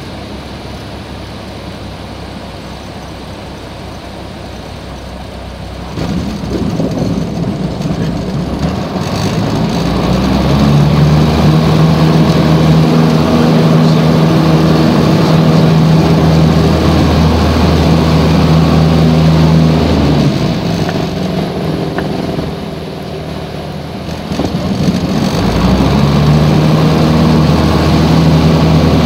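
Piper PA-28's single piston engine and propeller heard inside the cabin while the aircraft is on the ground. It runs low and quiet for about six seconds, then the throttle comes up and it settles into a steady, louder drone. It eases off briefly about twenty seconds in and picks up again near the end.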